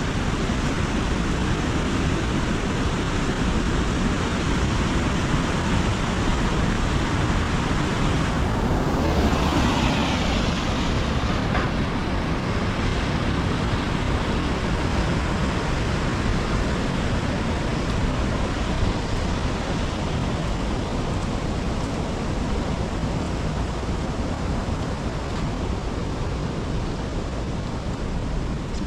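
Heavy rain falling steadily, with a louder whoosh that swells and fades about nine seconds in.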